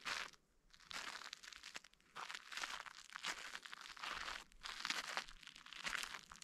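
Footsteps crunching on crusted snow, about one step a second.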